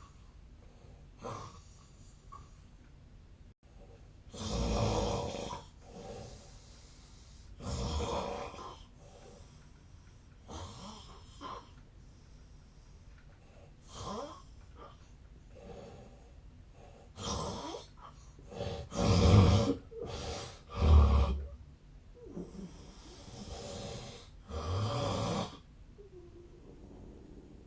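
A man snoring in his sleep: a series of loud, rasping snores, one every two to three seconds and uneven in strength, with the two loudest coming about two-thirds of the way in.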